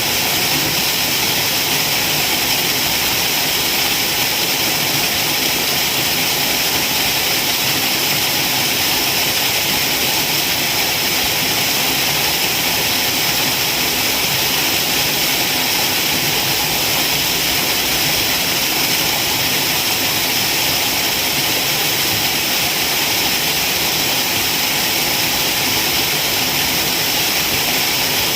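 Waterfall: a loud, unbroken rush of falling water with a hissing, high-pitched character.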